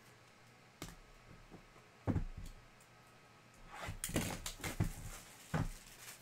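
A sealed cardboard Topps Tier One hobby box being handled on a table: a light knock about a second in, a thump near two seconds, a quick run of knocks and rustling in the middle, and a last thump near the end.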